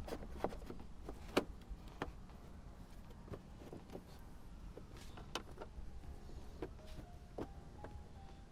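Scattered clicks and light knocks of fender parts and fasteners being handled and pushed into place, over a steady low hum. A few short faint tones come in near the end.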